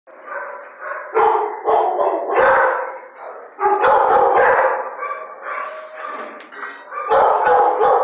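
Shelter dogs barking in a kennel block, loud barks coming in clusters about one, two and a half, four and seven seconds in.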